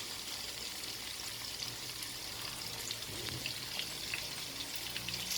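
Slices of tofu frying in hot cooking oil in a pan: a steady sizzle with scattered small pops and crackles.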